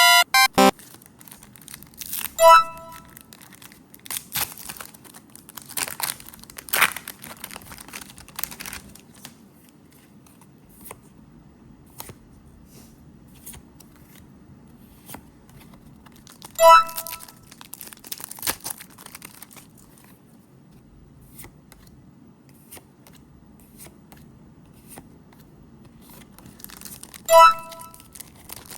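Foil booster pack wrappers tearing and crinkling while trading cards are handled, with scattered rustles and clicks. A short, bright chime rings three times, a couple of seconds in, about midway and near the end, louder than the handling.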